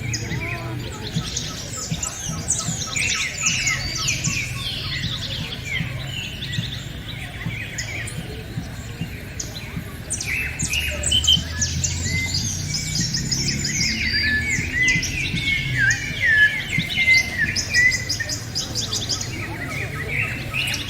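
Many birds chirping and calling at once in a dense, overlapping chorus, busiest and loudest in the second half, over a low steady hum.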